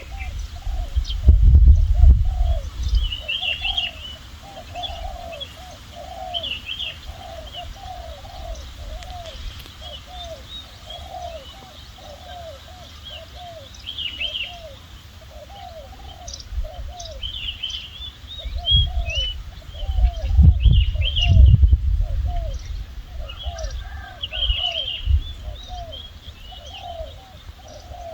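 A dove cooing over and over, short falling calls at about two a second, with small birds chirping on and off above it. Bursts of low rumble come near the start and again past the middle.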